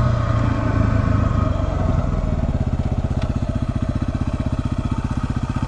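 2016 Yamaha WR250R's single-cylinder engine running, then easing off about two seconds in to a lower, evenly pulsing beat.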